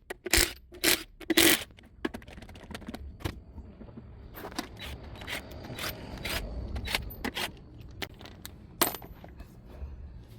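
Three sharp knocks in the first second and a half, followed by scattered light clicks and scraping.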